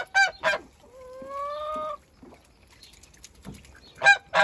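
Domestic geese honking: three short honks in quick succession, a longer drawn-out call rising slightly in pitch about a second in, then two more sharp honks near the end.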